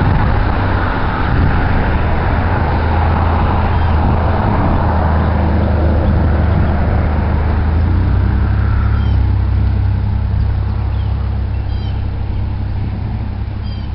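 Steady low engine rumble that eases off slightly toward the end, with a few short high chirps, like birds, in the second half.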